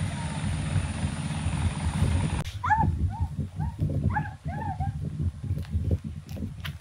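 A steady rumbling noise, then after a cut about two and a half seconds in, a dog gives a quick run of short, high yips, each rising and falling in pitch, over a low rumble.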